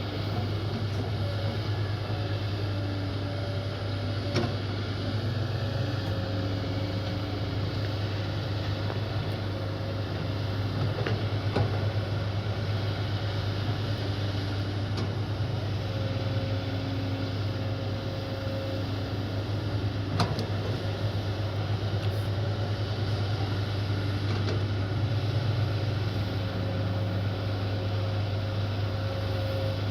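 Kobelco excavator's diesel engine running steadily with a low hum. Faint steady tones come and go over it, with a few light clicks.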